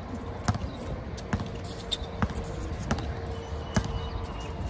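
A basketball being dribbled on an outdoor concrete court, with about six bounces at an even pace of roughly one every 0.8 seconds.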